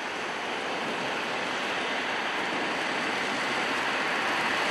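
Torrential rain pouring down in a steady, even hiss that grows slightly louder.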